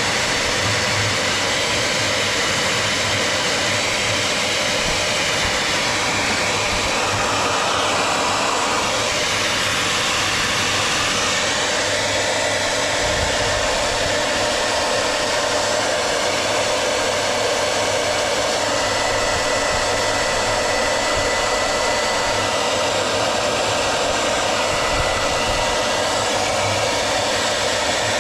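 Fan-assisted heat gun running steadily, a constant rush of blown air with a faint steady whine, blowing excess water out of a car engine's coolant passages.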